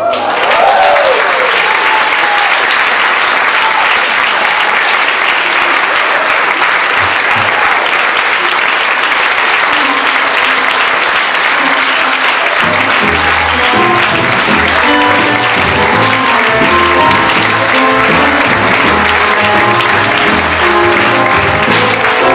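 Audience applauding steadily after a tango performance ends, with a voice calling out near the start. About halfway through, music starts again under the clapping.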